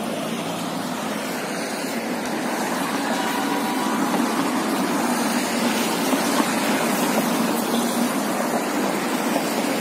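Steady rush of street traffic, an even noise with no distinct events standing out.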